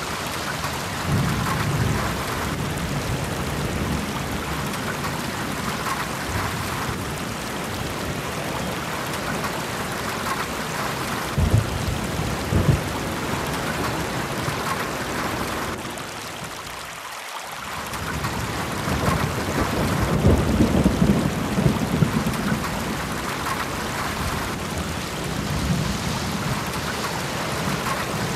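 Steady rain-like hiss with low rumbles of thunder swelling a few times. It thins out briefly and builds back about two-thirds of the way through.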